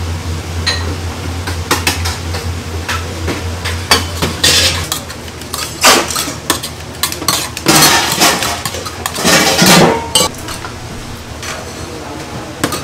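Stainless steel bowls and utensils clinking and clattering, with several louder rattling clatters in the middle. A steady low hum stops about five seconds in.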